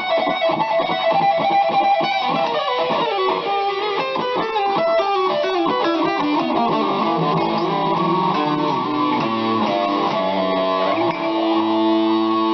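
BC Rich Mockingbird electric guitar played through a distorted rock amp tone on the bridge pickup with the treble rolled all the way off, which smooths it out and muffles it. Quick runs of notes give way to longer held notes near the end.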